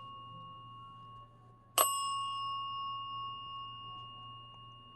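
A small metal bell struck once about two seconds in, a clear ring with several high overtones that fades slowly. A fainter earlier ring is still dying away at the start.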